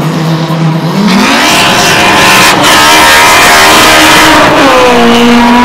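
Drag-racing car's engine held at steady revs on the start line, then launching about a second in with the engine note climbing hard. The pitch drops at a gear change near the end.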